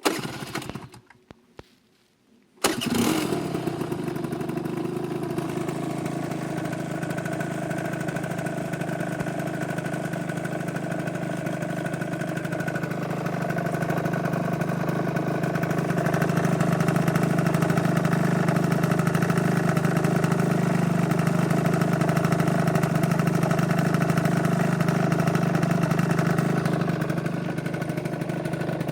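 A Piaggio Typhoon scooter's two-stroke engine, bored to 70 cc with a DR Evo kit and fitted with a LeoVince Touring exhaust. After a short burst and a few clicks, the engine catches about two and a half seconds in and then idles steadily through the exhaust, getting a little louder for a stretch in the second half.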